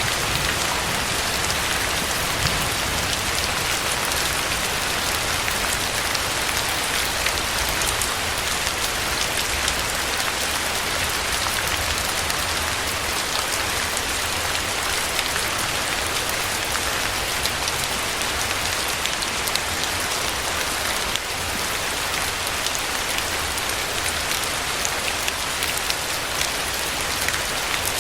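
Steady heavy rain falling, an even hiss with many small drop impacts throughout.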